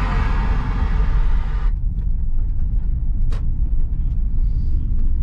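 Background music cuts off suddenly a little under two seconds in, leaving a steady low rumble, with one short click a little after three seconds.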